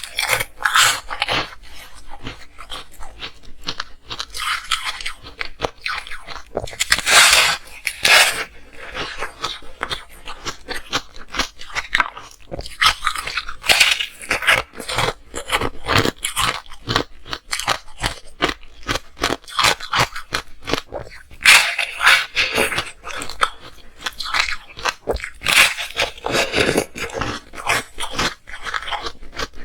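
Ice being bitten and chewed close to the microphone: a dense run of sharp, irregular crunches and cracks, with louder bursts of crunching every few seconds.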